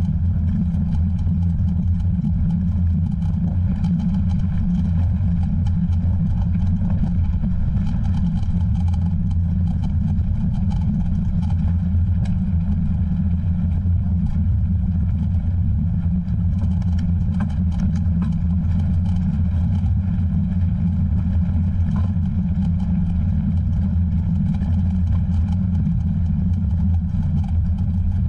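Steady low rumble of wind and motion buffeting a moving camera's microphone, with faint scattered clicks and rattles.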